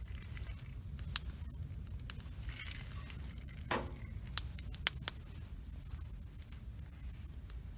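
Wood campfire burning, with a few sharp crackles and pops over a low steady rumble. About halfway through there is a brief falling sound.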